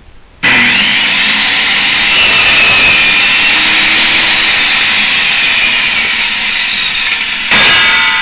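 Delta 10-inch bench saw switched on about half a second in, its blade motor spinning up to a steady high whine. About seven and a half seconds in, the sound suddenly gets louder and harsher for about a second, then begins to fade.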